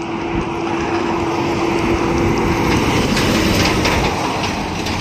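Container truck passing at highway speed, its engine and tyre noise swelling as it draws close, with a steady hum that fades out about three and a half seconds in.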